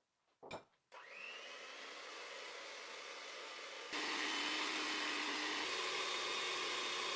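A short knock, then an electric hand mixer with a wire balloon whisk starts up and runs with a steady whir, beating egg whites into meringue foam in a glass bowl. It steps up louder about four seconds in.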